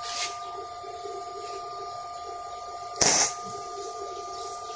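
MIG welding torch striking a brief arc on steel during a test weld of a new welding machine: one short crackling burst of arc about three seconds in, over a steady high whine.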